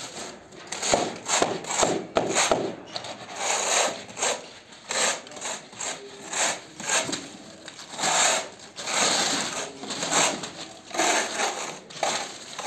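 A steel tiling trowel scraping over tile adhesive and glass mosaic tiles in irregular strokes, about one a second.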